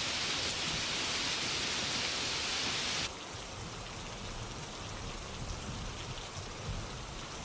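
Steady rainfall hiss; about three seconds in it drops suddenly to a quieter, duller rain.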